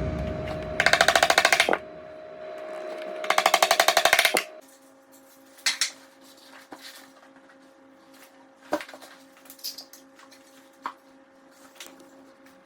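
Two short runs of rapid, evenly spaced mechanical clicking, about ten clicks a second, each lasting about a second. After that, scattered light taps and knocks over a faint steady hum.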